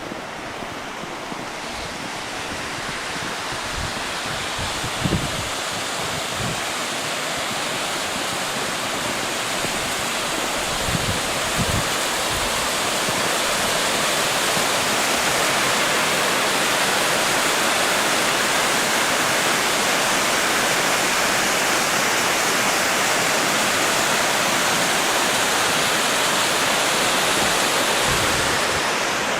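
Steady rush of falling water from Helen Hunt Falls and its creek, growing louder over the first dozen seconds and then holding even. A couple of soft low knocks come through about 5 and 11 seconds in.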